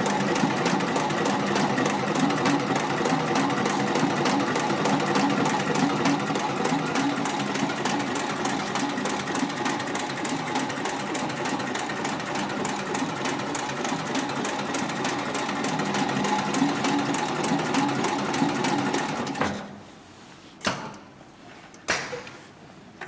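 Heavy-duty decorative-stitch sewing machine for upholstery and leather running steadily at speed, with a fast, even clatter of stitches over the motor's hum. It stops near the end, followed by a few short knocks.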